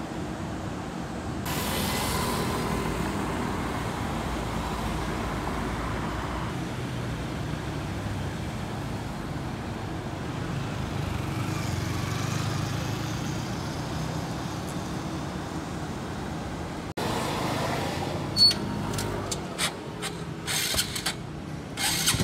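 City street traffic: vehicles passing in a steady rush of engine and road noise. Near the end the sound cuts abruptly and several sharp clicks or knocks follow.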